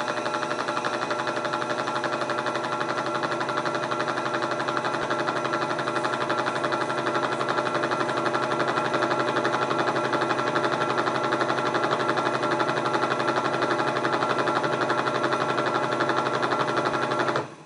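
Bench-mounted Whirlpool vertical-modular washer drive motor turning the transmission in spin mode after the shift actuator has shifted it: a steady machine whir with a fast, even flutter, which stops abruptly near the end.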